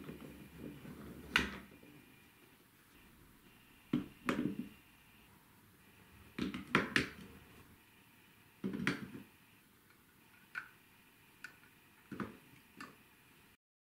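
Hape Quadrilla wooden marble-run pieces being fitted together by hand: about ten separate wooden knocks and clicks, one to two seconds apart, as rails and blocks are set in place. Near the end, short clicks as a red plastic funnel is seated on a wooden block.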